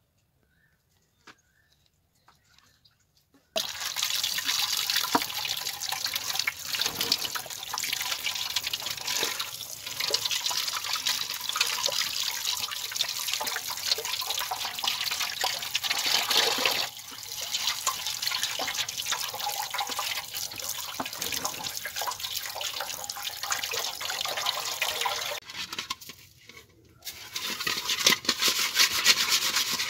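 Tap water running into an aluminium pot and splashing over tilapia as hands wash the fish. It starts about three and a half seconds in. Near the end it stops briefly, then hands scrub the fish with salt against the pot.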